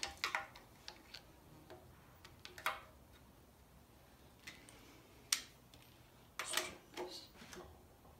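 Scattered metallic clicks and taps of hand tools working at the crankshaft nose of a Jeep 4.0 engine as the harmonic balancer is fitted, with a short cluster of clicks about two-thirds of the way in.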